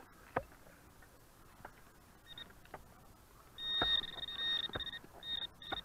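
A few sharp knocks of digging in hard ground, then from about halfway a metal detector's high steady tone sounding in broken stretches, signalling a buried metal target as the coil is swept over the hole.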